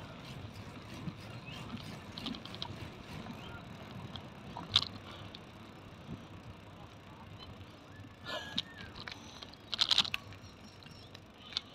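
Bicycle rolling along an asphalt path: a steady low rumble of tyre and wind noise, broken by scattered short high chirps and clicks. The loudest is a quick cluster about ten seconds in.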